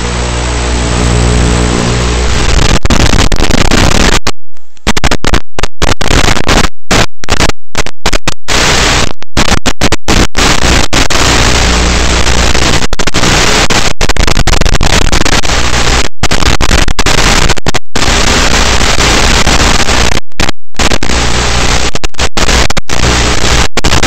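An RC airplane's motor runs steadily for about two seconds, then gives way to a loud, even hiss like radio static. The hiss is cut by many brief dropouts.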